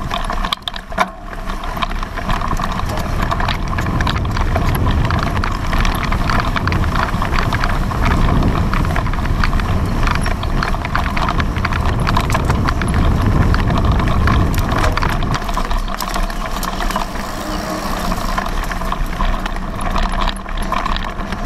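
Mountain bike ridden fast over bumpy grass and sand, heard from a camera mounted on the bike: many small rattling knocks over a low, continuous rumble.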